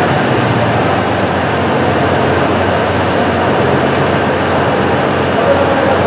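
Electric monorail hoist trolley travelling along its track, its drive running with a steady mechanical noise and no change in pace.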